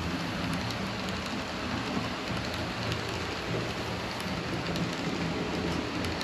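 HO scale model passenger coaches rolling along metal track: a steady rushing hiss with light scattered clicks of the wheels over the rails and a low hum underneath.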